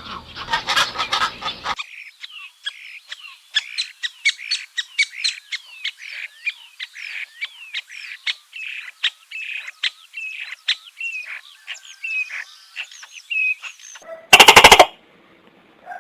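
Small birds chirping rapidly, many short calls with quick downward pitch slides. The chirping begins about two seconds in, after a short noisy sound, and is followed near the end by a brief, loud pitched call.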